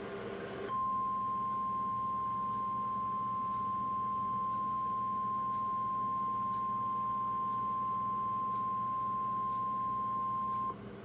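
NOAA Weather Radio 1050 Hz warning alarm tone: one steady high tone about ten seconds long, starting just under a second in and cutting off suddenly near the end. It is the alert tone that signals a warning message is about to be read.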